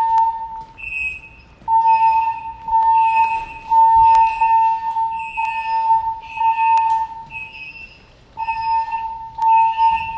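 Building fire alarm sounding its evacuation tone during an alarm system test: a loud high-pitched tone in repeated pulses about a second apart, with a longer pause now and then, between the spoken evacuation messages.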